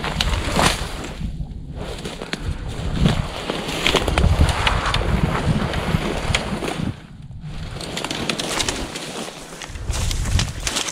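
Footsteps crunching through snow and dry brush, with twigs snapping and grass rustling as the brush is kicked through, and wind buffeting the microphone.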